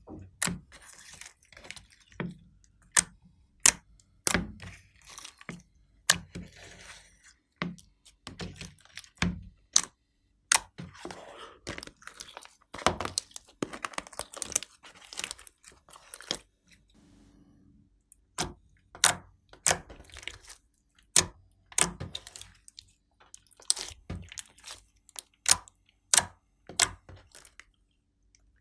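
Glossy slime being squeezed, poked and stretched by hand, giving many sharp, irregular pops and clicks with softer crackling between them.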